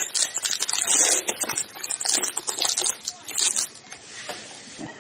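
Foil trading-card pack wrapper crinkling and tearing as a pack is opened, in quick rustling bursts that die down after about three and a half seconds.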